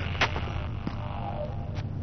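A low, steady droning hum, with a sharp click a moment in and two fainter clicks later.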